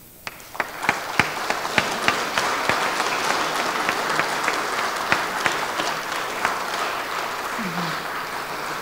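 Audience applauding. The applause breaks out suddenly a moment in and keeps on steadily, with a few sharp single claps standing out during the first couple of seconds.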